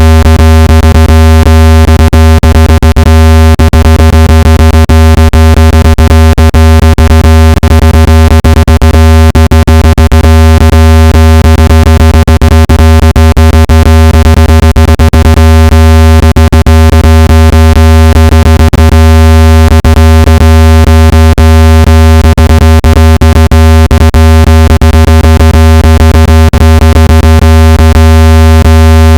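Speaker-cleaning tone: a very loud, steady low tone with many overtones, peppered with crackling clicks, played to shake water and dust out of a phone speaker.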